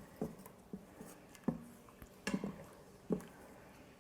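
A utensil scraping and stirring in the Instant Pot's inner pot with broth in it, loosening the browned bits from the bottom: about five short scrapes and taps, spread unevenly.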